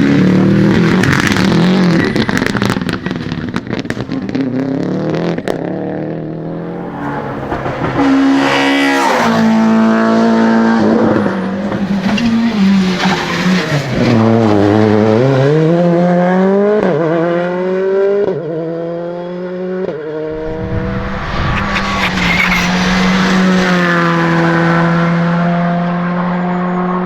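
Rally cars at full attack: engines revving hard and climbing through several quick gear changes, with sharp cracks in the first few seconds and some tyre squeal.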